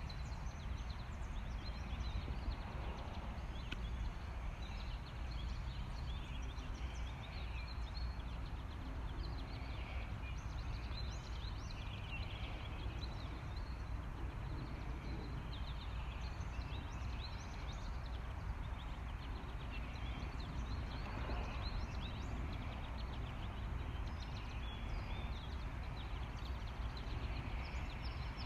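Outdoor ambience: a steady low wind rumble with many short, scattered bird chirps and calls.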